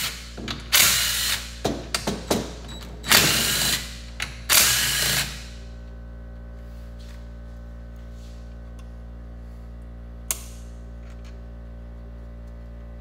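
Cordless power drill/driver spinning out engine crankcase bolts in several short bursts over the first five seconds. After that only a low steady hum remains, with a single click about ten seconds in.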